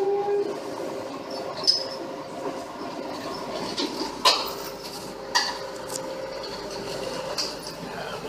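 Caterpillar crawler excavator running with a steady hum, with several sharp metallic clanks from its steel tracks and parts.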